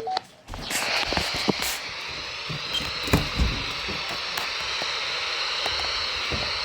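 A short keypad beep, then steady radio static from about half a second in, with a few clicks and pops through the hiss: the receiver is tuned to a frequency where no station is coming in.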